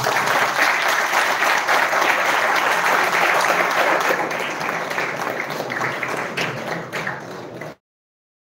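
Audience applauding with dense, many-handed clapping. The clapping thins out over the last few seconds and then cuts off suddenly.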